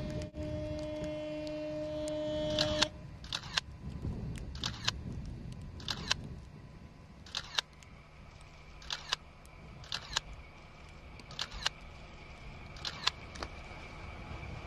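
A locomotive horn holds one steady note and cuts off about three seconds in. Then a single-lens reflex camera shutter fires again and again, a quick double click about every second and a half, over the low rumble of the approaching snow-plow locomotive.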